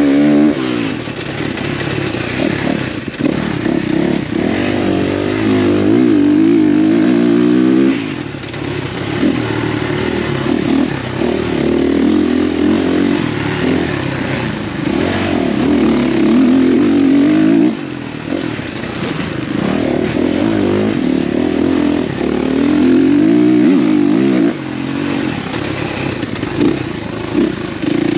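Off-road dirt bike engine revving hard under racing load, its pitch wavering up and down with the throttle. It falls off sharply about eight, eighteen and twenty-four seconds in and then climbs again.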